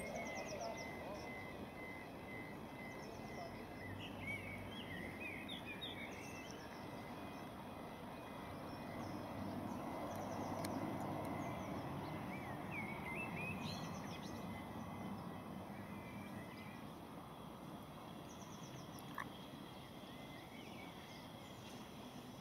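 Birds singing in short calls and trills over a faint, steady rumble from a distant steam locomotive working towards the listener; the rumble swells a little around the middle.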